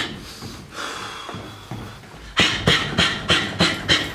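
A boxer's sharp, hissing exhalations, one forced out with each jab. A longer breath comes first, then about halfway through a rapid string of about seven short exhalations, roughly three a second.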